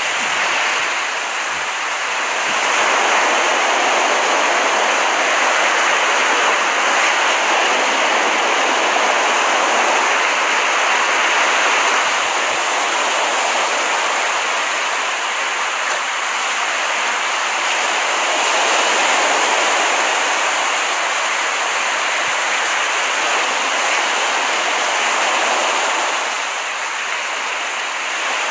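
Ocean surf washing onto a beach as a steady rushing sound that swells and eases slowly, dipping briefly near the start and again near the end.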